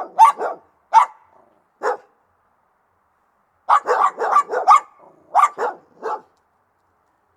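Rottweiler barking: four barks, a pause of about a second and a half, then a quick run of barks followed by three more.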